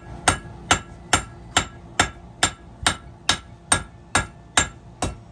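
Blacksmith's hand hammer striking hot steel on an anvil in a steady rhythm of about two blows a second, each blow leaving a short metallic ring. This is the drawing out of a horseshoe into a knife blade.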